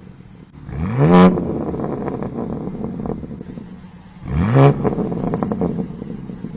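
BMW G80 M3's twin-turbo S58 straight-six, fitted with a custom single-pipe exhaust mid-section, blipped twice: the revs climb sharply about a second in and again about four seconds in, then fall back to idle between.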